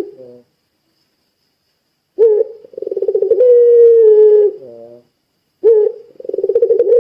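Puter pelung dove calling twice: long, drawn-out coos. Each opens with a short note, flutters into a long held tone that sags slightly in pitch, and ends in a broken, falling stutter. A tail of an earlier call ends in the first half-second.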